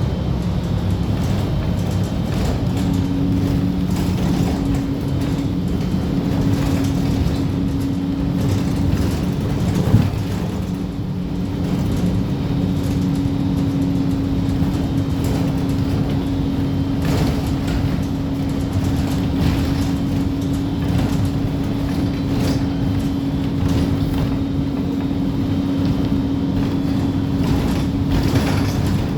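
Steady low engine rumble with a constant hum, like a vehicle running; a single knock about ten seconds in.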